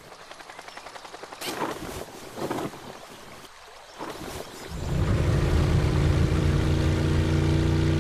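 Cartoon motorboat-style engine sound effect of an amphibious jeep, coming in about five seconds in and then running steadily as a low hum. Before it, a couple of soft whooshes.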